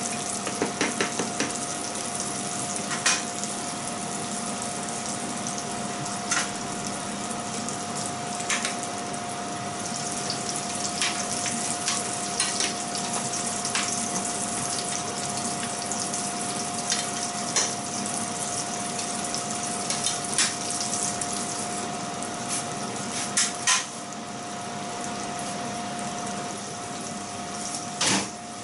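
Sea bream steak and king prawns sizzling in nonstick frying pans, a steady frying hiss with a constant hum underneath. Sharp clicks and clatter of a spatula and tongs against the pans and a glass lid come every few seconds, busiest near the end.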